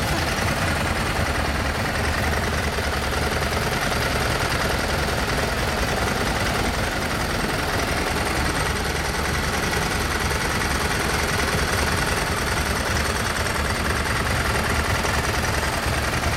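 Ducati 999 superbike's L-twin engine idling steadily.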